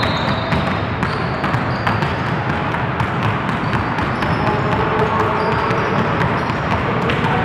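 Several basketballs being dribbled on a hardwood gym floor, a rapid, uneven patter of bounces.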